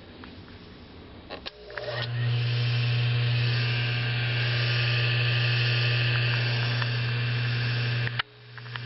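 Bench lathe's two-speed, centrifugal-switch-start AC induction motor switched on with a click, winding up within about half a second, then running steadily with a strong low electrical hum and a high whine. The hum cuts off suddenly about eight seconds in.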